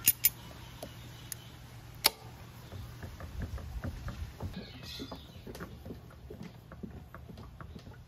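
Hand tools on the Vespa LX rear axle: three sharp metal clicks of locking pliers being handled and clamped onto the cotter pin, the last about two seconds in. These are followed by a quick run of small ticks and scrapes as the pliers twist and pull at the cotter pin in the axle nut.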